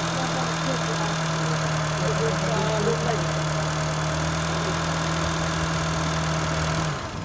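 Honda Fit engine idling steadily, with the timing-chain noise the mechanic has pointed out. The sound stops abruptly near the end.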